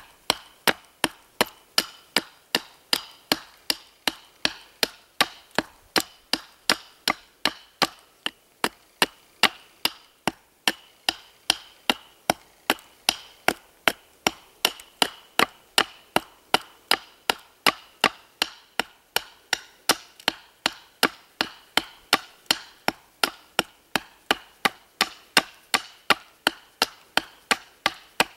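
A fixed-blade knife chopping down into a wooden stick held upright on a stump, taking off chips to taper the end. The strikes come in a steady rhythm, about two a second, each one a sharp chop.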